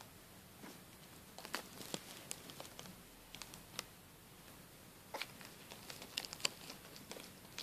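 Plastic bag being handled, crinkling in short, irregular crackles, with bunches of them about a second and a half in and again from about five seconds in.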